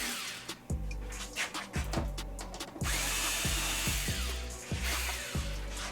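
Power drill backing out screws, its motor whirring for about a second and a half near the middle, over background music with a steady beat.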